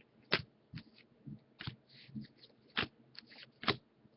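Baseball cards being handled and flipped through by hand: a string of short, faint flicks and taps at irregular intervals, the sharpest about a third of a second in, near three seconds and near the end.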